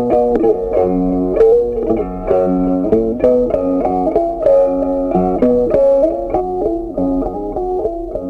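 Background music on a plucked string instrument: a quick picked melody of short notes.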